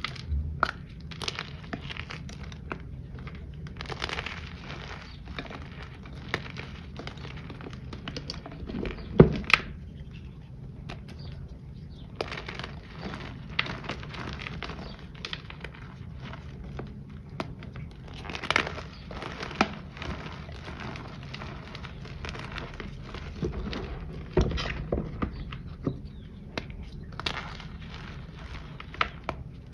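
Handmade powder reform shapes and chunks crushed and crumbled between the fingers: a continuous run of dry crunches and crackles. The shapes are a little crunchy, and the sharpest crunch comes about nine seconds in, with more near 18 and 24 seconds.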